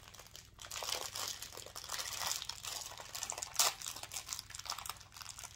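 Small foil snack packet crinkling as it is handled and folded in the hands, with a sharper crackle about three and a half seconds in.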